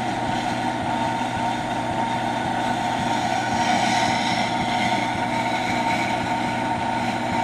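Dry grinder running steadily while a dull detail gouge is sharpened against its wheel, a constant motor hum under a rough grinding hiss.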